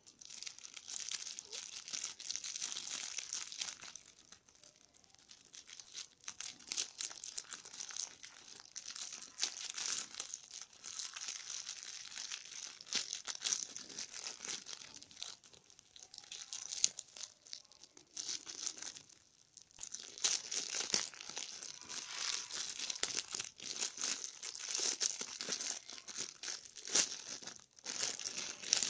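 Clear plastic bag crinkling and rustling as it is handled and unwrapped from around a small object, in irregular spells with a few short pauses.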